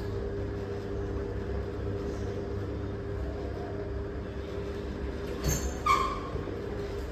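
Steady low rumble and hum of a vehicle on the move, heard from inside. A short, high-pitched chirp cuts in about five and a half seconds in.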